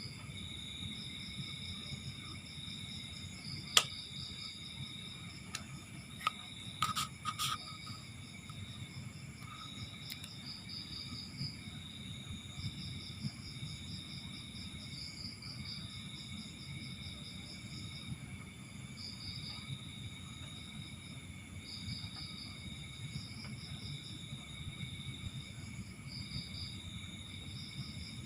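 Crickets chirping continuously in trilled bursts, with a few sharp clicks of small parts being handled, the loudest about four seconds in and a cluster around seven seconds.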